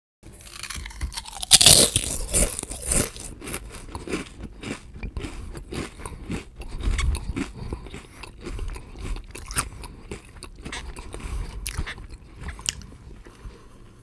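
A person biting into potato chips with a loud crunch about a second and a half in, then chewing them with a long run of irregular crisp crackles.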